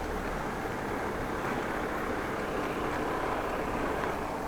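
Steady traffic noise with a vehicle running nearby, heard from a moving bicycle.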